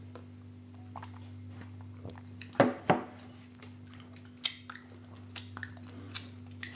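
Mouth sounds of a man drinking water and then licking his fingers after eating pretzel thins: swallows, lip smacks and small wet clicks, with two louder sounds about two and a half seconds in. A steady low hum runs underneath.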